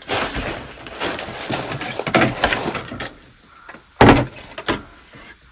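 White plastic bucket holding a potted orchid being handled and moved, with irregular scraping and knocking, then set down with a sharp knock about four seconds in and a smaller knock just after.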